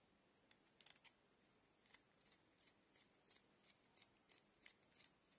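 Small screwdriver turning a terminal screw on a ceramic lamp holder: faint, sharp metallic clicks, a few scattered at first, then a regular run of about three a second from about two seconds in.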